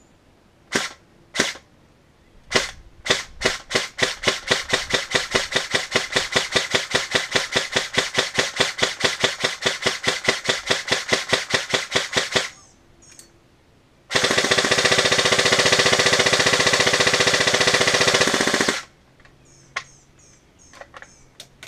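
Airsoft HK416 rifle firing single shots in semi-auto, played back sped up: a few separate shots, then a fast even string of about five shots a second for roughly nine seconds. After a short pause the shots run together into a continuous buzz for about five seconds.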